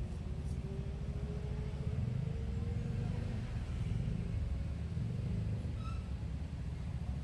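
Steady low rumble of road traffic, with one vehicle's engine rising slowly in pitch over the first few seconds.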